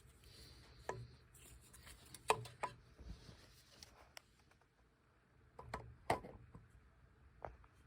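Small hard clicks and knocks, about six of them, scattered irregularly over a low background hum: small objects being handled and fitted together by hand.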